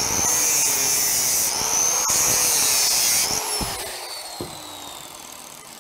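Angle grinder with a cut-off disc running at full speed and cutting into a potted magnetic neon transformer for about three seconds, with a high whine over a rough grinding noise. It is then switched off, and the whine falls in pitch and fades as the disc spins down.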